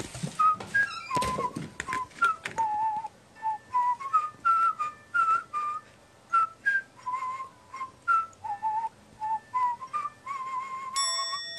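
A whistled tune of short, slightly wavering notes, two or three a second, each starting with a sharp click. Near the end a held chord comes in.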